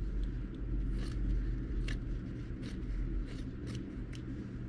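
Scissors snipping through fabric and thread: a few light, scattered snips over a low steady hum.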